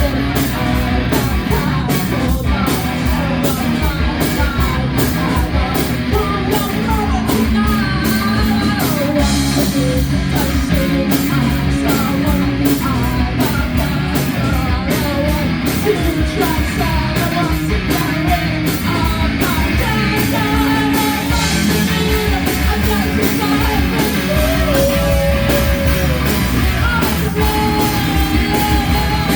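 Live rock band playing a song, with a singer's voice over drums and amplified instruments and a steady drum beat.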